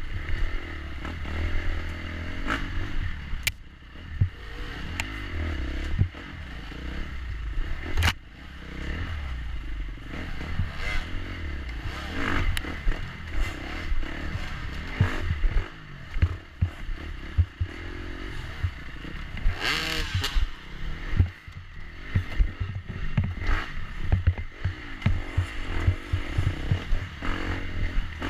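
Onboard sound of a dirt bike ridden along a rough wooded enduro trail: the engine running under changing throttle, with clattering and scraping from the bike over roots and rocks and a few sharp knocks.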